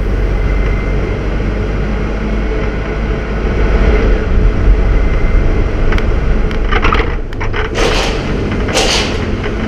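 Diesel train on the Jiji railway line rumbling steadily, with two short hisses near the end.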